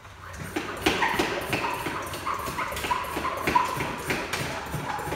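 Powered fluid extractor pump running, sucking brake fluid out of the clutch master cylinder reservoir, with a steady whine and a rhythmic pulsing about three times a second.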